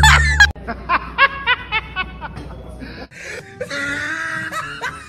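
A woman laughing in a quick run of repeated 'ha' notes, about five a second, over background music; the laughter stops about three seconds in as the sound changes.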